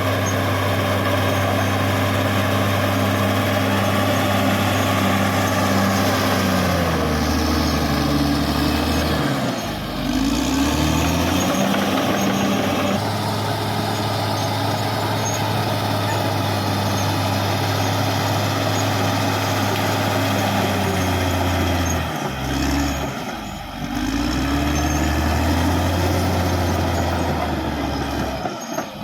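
Caterpillar D6R XL bulldozer's diesel engine working steadily, its pitch sagging and recovering twice: about seven seconds in, and again about twenty-two seconds in.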